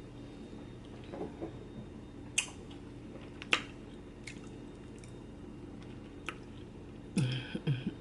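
Close-up eating sounds: a few sharp, spaced-out mouth clicks and smacks over a low steady hum, then a brief voiced murmur near the end.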